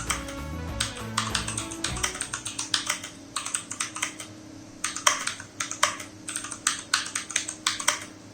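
Easternt Times Tech i500 mechanical keyboard with clicky blue switches being typed on in quick bursts with short pauses, each keystroke a sharp click.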